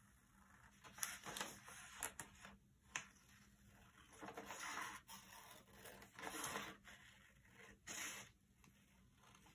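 Scissors cutting paper, with the paper rustling as it is handled: faint, with short sharp snips about a second apart at first, then a few longer swishing cuts.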